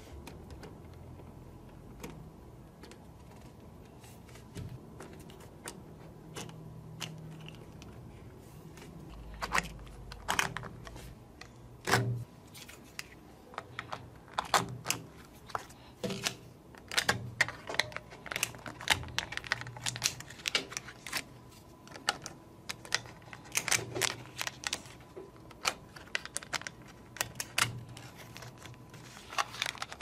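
Small magnetic metal balls clicking as they snap onto each other and onto the model, a scatter of sharp ticks that becomes frequent and louder from about a third of the way in, along with some rustling of a paper card.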